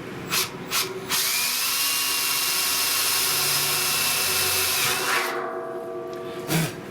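Power drill drilling holes in the steel of a barrel stove. Two brief trigger blips come first, then about four seconds of steady drilling under load with a motor whine. The drill then runs more lightly and gives a short burst near the end.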